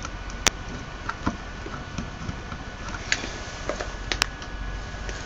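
Steady low room hum and hiss with a few small, sharp clicks and taps, the sharpest about half a second in and about four seconds in.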